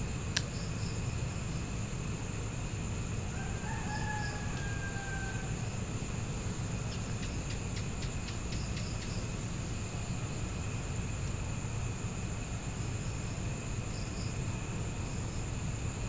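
Evening outdoor ambience: a steady, high-pitched insect chorus of crickets over a low rumble. A distant rooster crows once about four seconds in, a drawn-out call that falls slightly in pitch. There is a sharp click just after the start and a quick run of high chirps around eight seconds.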